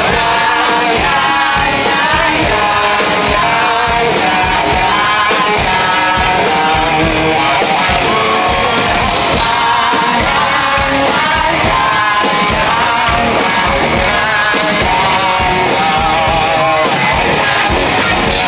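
Live rock band playing: electric guitars and drums over a steady beat, with a male singer singing hard, heard from the crowd in a large hall.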